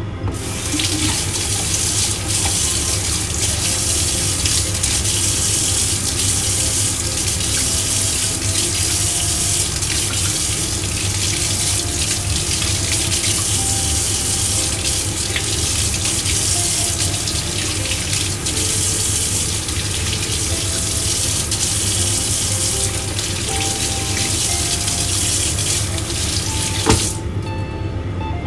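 Kitchen tap running into a sink, a steady rushing hiss that starts abruptly and cuts off about a second before the end, just after a sharp knock.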